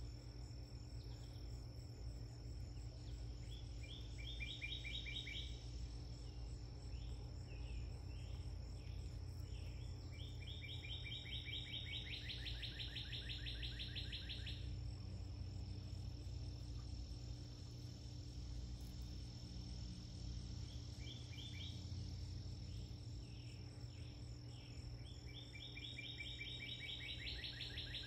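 Outdoor insect chorus: a steady thin high whine throughout, with a fast trill of rapidly repeated clipped notes rising out of it four times, the longest lasting about four seconds.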